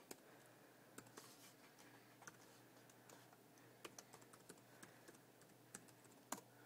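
Typing on a MacBook Pro laptop keyboard: faint, irregular key clicks.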